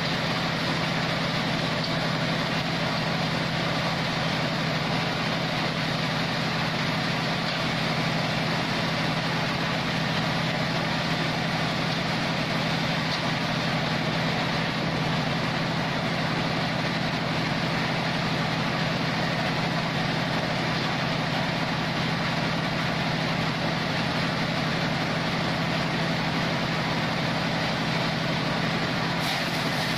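Log-cutting band sawmill running steadily: a constant mechanical drone with a strong low hum.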